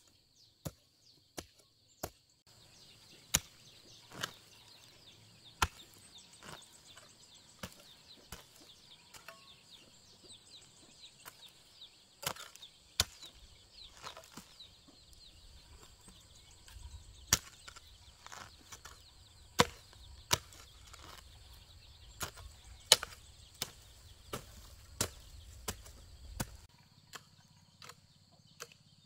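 Hoe chopping into soil and roots, one sharp strike roughly every second, somewhat irregular, with high chirping behind.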